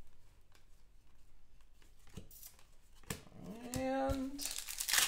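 Trading cards being flipped through by hand: a few quiet flicks and snaps of card stock. About three and a half seconds in, a short pitched vocal sound rises and then holds for about a second, louder than the cards.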